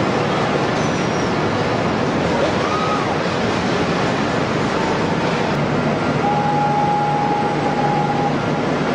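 Okuma CNC machine machining a crankshaft: a steady, loud rushing noise, with a faint steady whine from about six to eight seconds in.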